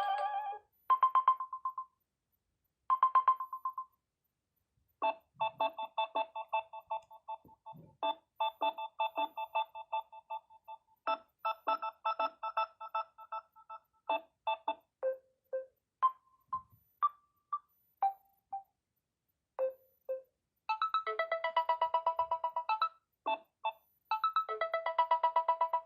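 Samsung Galaxy A30s ringtones playing in turn. First comes a short trilled beep pattern, heard twice. Then a melody of short plucked electronic notes, and a little over twenty seconds in, a busier, denser tune.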